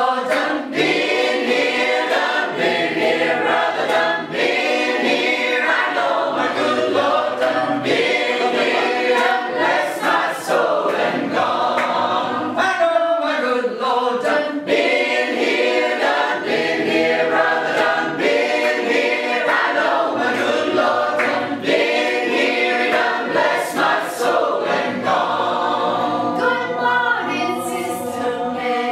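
Mixed choir of women's and men's voices singing a cappella in several parts, without a break.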